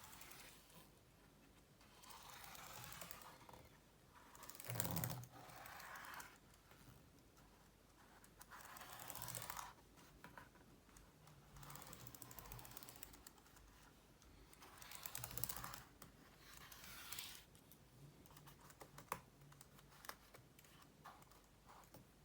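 Cotton bud dampened with washing-up liquid rubbing over MacBook Pro keys. Faint scrubbing comes in short strokes of a second or two, about six times, with the keys clicking now and then, mostly in the later part.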